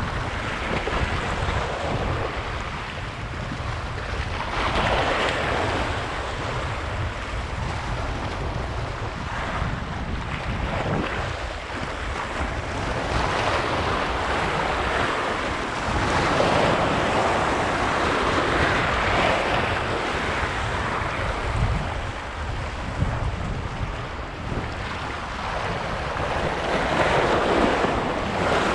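Sea waves washing onto the shore, the wash swelling and ebbing every several seconds, with wind buffeting the microphone as a steady low rumble underneath.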